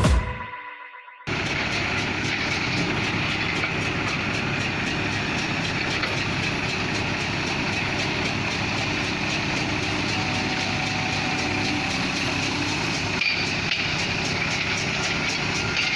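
Music fades out in the first second; then a heavy diesel engine, from the excavator or the stuck dump lorry, cuts in suddenly and runs steadily.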